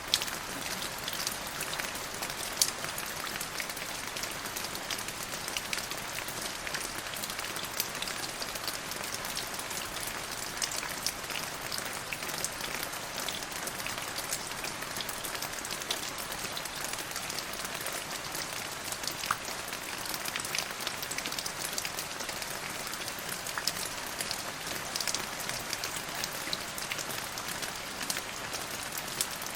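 Steady rain falling on a surface, a dense even hiss with many individual drops ticking through it.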